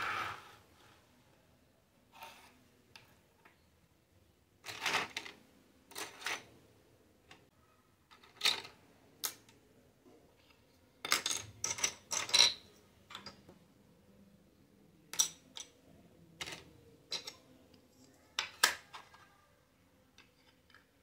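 Small plastic toy dishes and utensils clicking and clattering as they are picked up and set down on a table: irregular sharp clicks, busiest in the middle.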